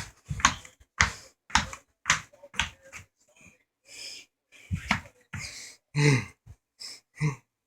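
A man's short, forceful breaths while exercising, about two a second, thinning out after about three seconds. Two short grunts come near the end.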